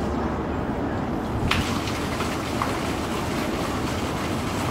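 Wind rumbling and buffeting on the camera microphone. A rustling hiss joins about one and a half seconds in.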